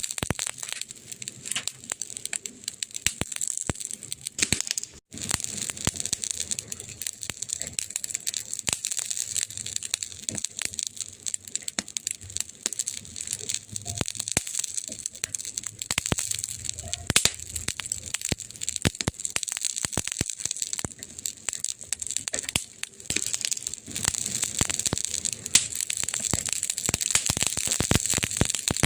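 Burning wood fire crackling: a dense run of sharp pops and snaps over a steady high hiss, with a brief gap about five seconds in.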